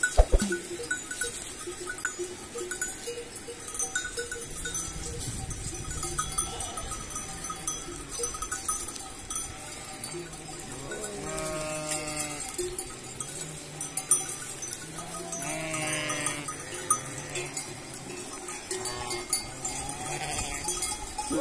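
Flock of sheep and goats with bells clinking, and bleats several times in the second half.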